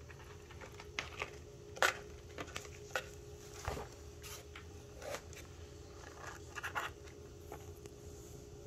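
A cat rubbing and shifting inside a cardboard box, making irregular scratches and scrapes on the cardboard, the sharpest about two seconds in. A faint steady hum runs underneath.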